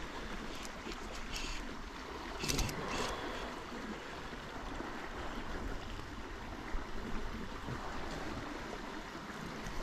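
River water flowing steadily, an even rushing hiss, with a few brief clicks about two and a half seconds in.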